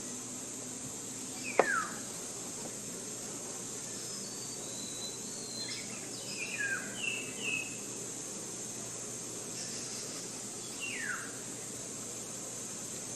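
Forest ambience: birds giving short, sharply falling whistled calls and chirps several times over a steady high insect drone. A sharp click about one and a half seconds in is the loudest sound.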